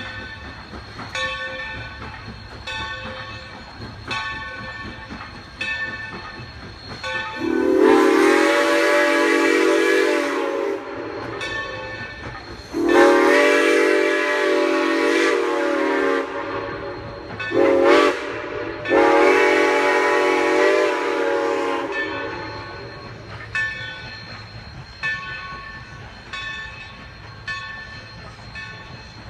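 Steam locomotive No. 3025's chime whistle sounding the grade-crossing signal: two long blasts, a short one, then a long one. Its bell rings about every one and a half seconds before and after the blasts, over the low rumble of the passing train.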